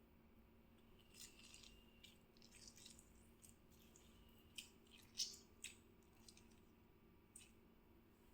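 Near silence with faint scraping and a few light, sharp clicks of kitchen handling, the loudest about five seconds in.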